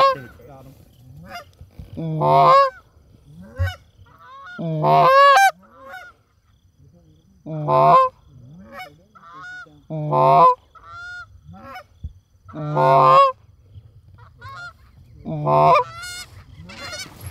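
Canada goose honks: a loud two-note honk, a low note breaking up into a higher one, repeated seven times about every two and a half seconds, with fainter, shorter honks in between.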